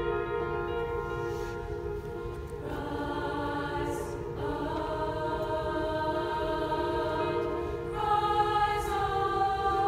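Women's choir singing long held chords that move to new harmonies three times, growing a little louder near the end.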